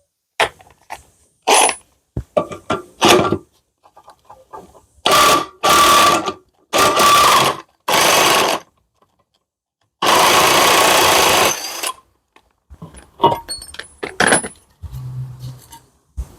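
A power tool with a 24 mm socket runs in five short bursts, undoing the blade-assembly bolt on a lawnmower, the last burst the longest. Short knocks and clicks from handling the parts come before and after.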